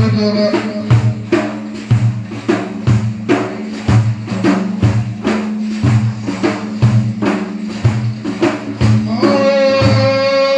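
Instrumental break of an Arabic lament song: hand percussion beating steadily about twice a second over a held low tone. A man's sustained singing voice comes back in near the end.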